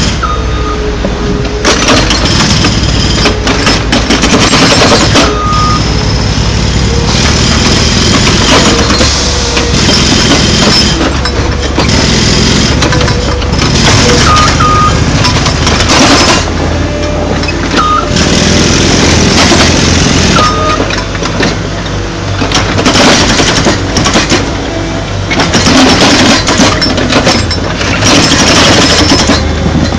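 Heavy construction machine's diesel engine running steadily under load, with repeated knocks and crunching of concrete slab being broken up and moved.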